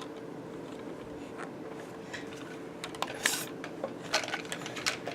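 Light clicks and clatter of small hard objects, several of them from about three seconds in, with one short hiss among them, over a faint steady hum.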